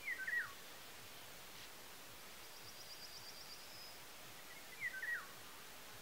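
Wild birdsong over a steady faint hiss: a short whistled phrase of falling notes sung at the start and repeated about five seconds in, with a faint, high, rapid trill from another bird in between.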